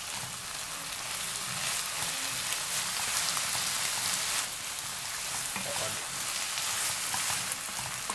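Ground beef, onion and tomato sizzling steadily in a frying pan while a wooden spoon stirs and scrapes through the mince, with small crackles.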